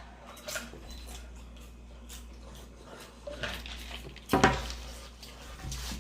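Dishes and cutlery clinking and clattering in scattered short knocks, with a louder clatter about four seconds in.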